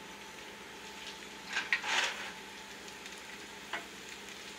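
Steak sizzling in a hot frying pan: a steady low hiss of fat frying, with a short burst of louder spits about two seconds in and a single pop later.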